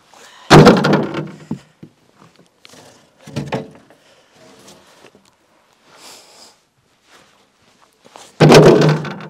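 Freshly sawn timber boards being dropped onto a stack: two loud wooden thunks, about half a second in and near the end, with a softer knock at about three and a half seconds.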